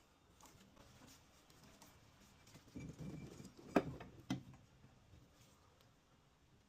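Faint rustling and small clicks of parts being handled, with two sharp knocks just past halfway, the first the louder.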